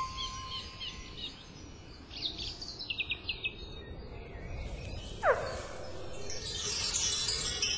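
Birds chirping in short high calls, some in quick runs, with one quick falling whistle about five seconds in and a high shimmering sound near the end.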